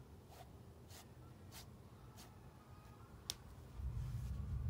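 Faint strokes of a fan brush across a canvas, soft scratchy swishes a little under two a second, the last one sharper. A low rumble comes in near the end.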